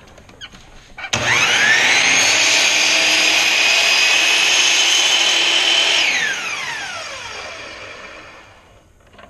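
Electric compound miter saw motor switched on about a second in, whining up to speed and running steadily while the blade is lowered slowly through a small wooden block. It is switched off about six seconds in, and the blade winds down in a long falling whine.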